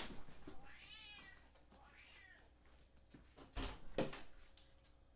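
A cat meowing, faint, several times: an arching meow about a second in and a louder one near four seconds.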